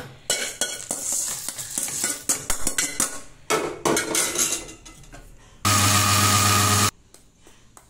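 A steel spoon scraping and clinking as roasted black urad dal and dried red chillies are spooned from a steel bowl into a steel mixer-grinder jar, with dry grains pattering into the jar. Near the end comes a loud steady mechanical whir for about a second that starts and cuts off abruptly.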